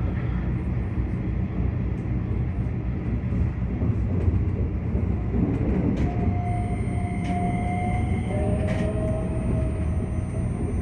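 Keikyu electric train running on the line, heard from the driver's cab: a steady low rumble of wheels on rail, with a thin electric whine coming in about six seconds in.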